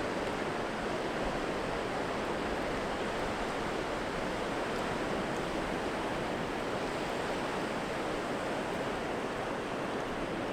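Sea surf washing on the shore: a steady, even rush of waves.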